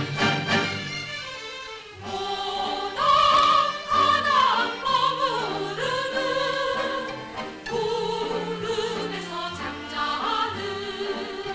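Stage-musical number: orchestral accompaniment with a sung melody of long, held notes, entering about two seconds in after a few strong beats.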